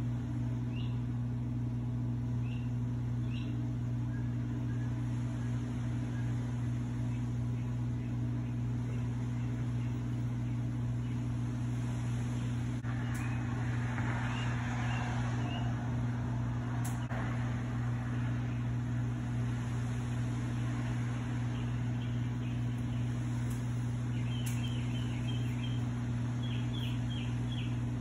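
A steady low hum runs throughout, with small birds chirping over it, in a quick series of chirps near the end. A soft rustling hiss rises for a few seconds around the middle.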